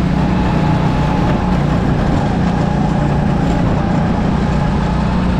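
An engine running steadily: a constant low hum over an even rushing noise, with no change in pitch or level.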